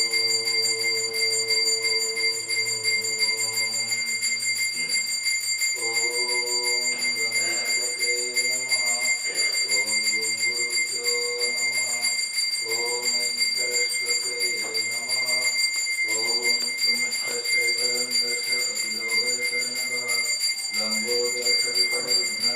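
A hand bell rung without pause, its ringing holding steady throughout, over voices chanting. The voices hold one long note for the first few seconds, then move into short sung phrases.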